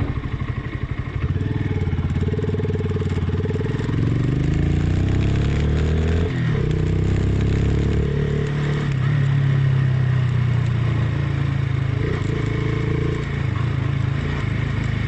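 Honda CB190R single-cylinder motorcycle engine running under way, its pitch rising and falling with the throttle, with a brief dip about six seconds in, as at a gear change.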